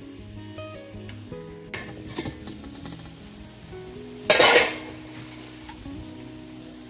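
Background music with a steady run of notes over light kitchen sounds: a few small clinks of cookware and utensils, then one short, loud burst of noise about four seconds in.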